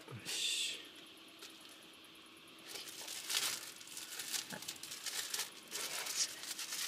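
Thin plastic bag crinkling and rustling as hands wrap a small potato in it: a short rustle at the start, then irregular crinkling bursts from about three seconds in.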